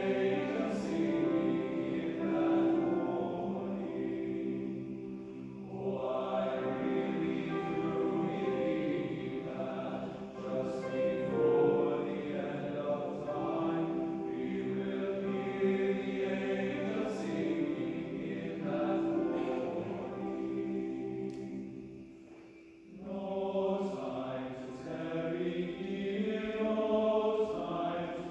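Men's choir singing in several parts, with held chords that shift from phrase to phrase. About three-quarters of the way through the voices break off briefly, then come back in.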